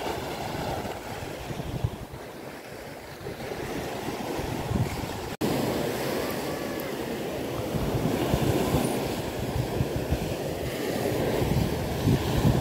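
Wind buffeting the microphone over small waves washing onto a sandy beach, a steady low rush. The sound cuts out for an instant about five seconds in.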